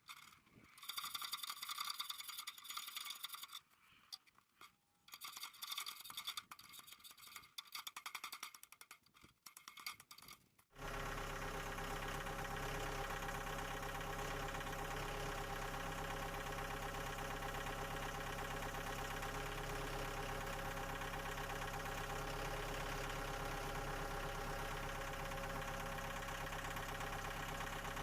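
Scattered high-pitched sounds with short gaps, then, about eleven seconds in, a motor that starts abruptly and runs at a steady, even speed.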